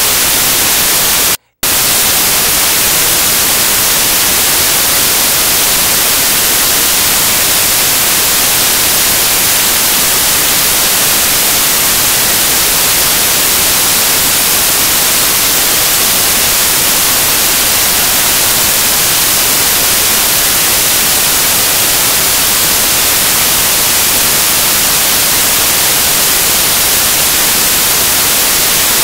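Loud, steady white-noise static hiss, strongest in the highs. It cuts out for a split second about a second and a half in, then carries on unchanged.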